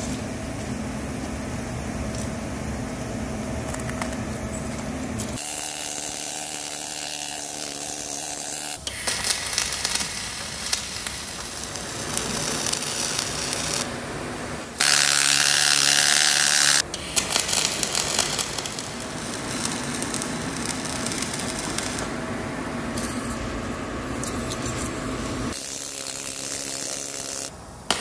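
Wire-feed (MIG) arc welding on steel, heard in several stretches that change abruptly from one to the next. The loudest is a harsh hiss about fifteen to seventeen seconds in.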